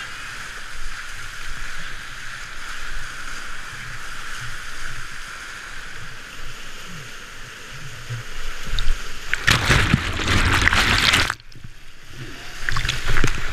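Rushing, flood-swollen whitewater with water splashing against a kayak. About nine seconds in there is a loud crash of breaking water over the boat for about two seconds, which cuts off suddenly, then more splashing near the end.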